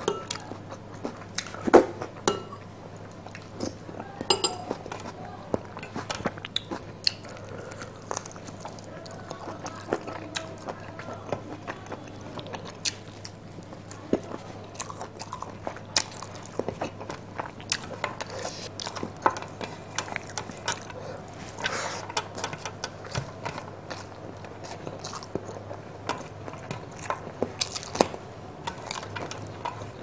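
Close-miked chewing and wet mouth clicks of a person eating chicken curry and rice by hand, the clicks scattered irregularly throughout. A faint steady hum runs underneath.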